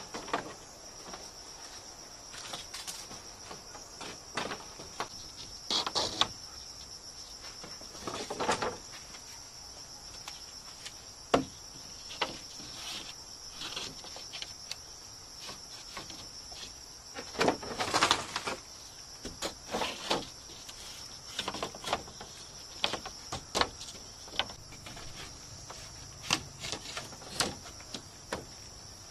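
Bamboo knocking, clattering and scraping as split bamboo slats and green bamboo poles are handled and fitted into a wall, in irregular knocks with one sharp crack about a third of the way in. Behind it, insects keep up a steady high-pitched chorus.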